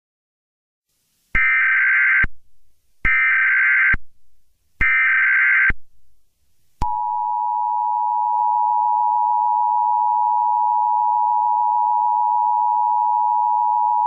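Emergency Alert System alert tones: three short bursts of SAME header data tones, each just under a second long, then, about seven seconds in, the steady two-tone EAS attention signal (853 and 960 Hz), which holds to the end.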